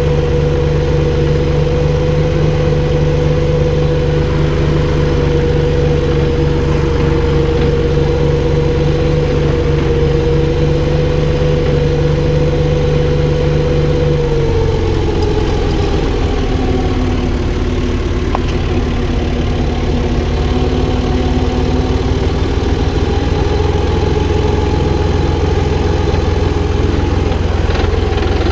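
Valtra BF-75 tractor's diesel engine running steadily; about halfway through its speed drops and it settles at a lower, steady pitch.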